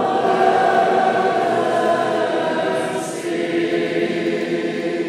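Choir singing in sustained chords, Byzantine liturgical chant without instruments.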